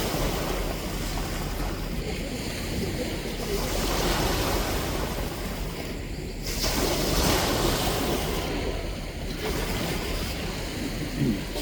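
Ocean waves breaking and washing on the shore, a steady rushing that swells louder twice, with a short sharper splash near the end.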